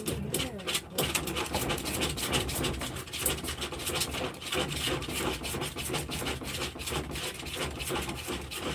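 Dog's claws scratching and scrabbling rapidly and continuously at a plastic pet-pen panel, a dense run of scraping strokes.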